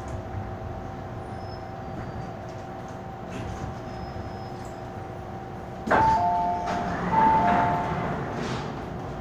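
MTR M-Train standing at the platform with a steady electrical hum. About six seconds in, the doors release with a clunk and a two-note falling chime sounds twice as the sliding passenger doors open.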